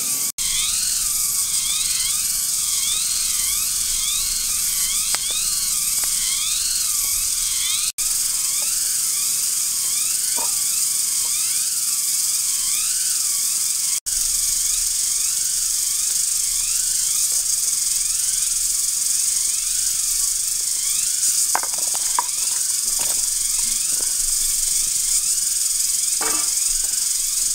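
Forest insects buzzing in a loud, steady high drone, with a repeated rising-and-falling chirp over the first half and a few light knocks near the end.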